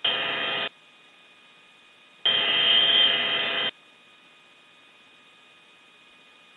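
Two bursts of radio hiss with a faint steady whine, as the radio channel opens without anyone talking: the first cuts off under a second in, the second lasts about a second and a half, with near silence between and after.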